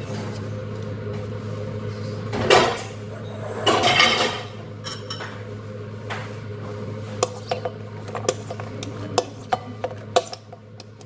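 Glass bowls knocking and clinking against a large glass mixing bowl as chopped vegetables and olives are tipped in: two short scraping rushes of food sliding out a few seconds in, then a run of sharp clinks in the second half. A steady low hum runs underneath.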